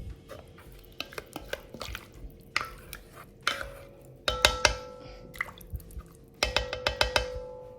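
A utensil stirring in a metal cooking pot, knocking and scraping against its sides. The strikes come in scattered knocks, with two louder clusters about four and a half and seven seconds in, where the pot rings on briefly after each hit.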